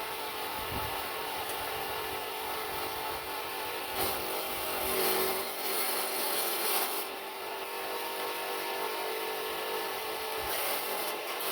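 HZ05 forage chopper's 1/4 HP electric motor and spinning blades running smoothly and steadily. A louder, harsher noise comes in for about three seconds in the middle and again briefly near the end.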